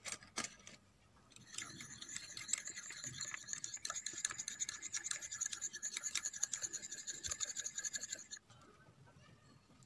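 Miniature wire whisk beating an egg in a small ceramic bowl: fast, continuous scraping and ticking of the wires against the bowl, starting about a second and a half in and stopping suddenly near the end. A few metallic clinks at the start as the whisk is pulled from a holder of tiny spoons.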